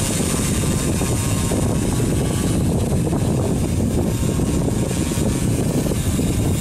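Pixhawk-controlled drone's propellers running steadily as it holds position against strong wind. Heavy wind rumble on the microphone is the loudest part.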